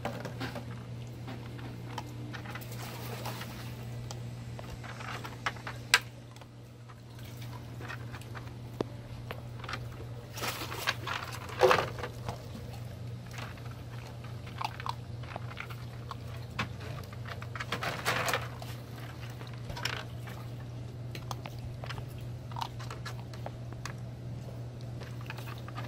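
Puppy crunching dry kibble while nosing among empty plastic water bottles in a plastic kiddie pool, with scattered crinkles and knocks of the bottles. There is a sharp knock about six seconds in, a louder cluster of knocks around twelve seconds and more near eighteen seconds, over a steady low hum.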